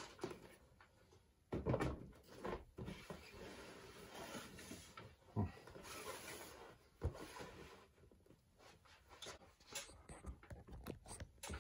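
Cardboard toy-set boxes being handled and shifted by hand: faint rustling and scraping with a few soft knocks, a short lull past the middle, then light clicks and taps near the end.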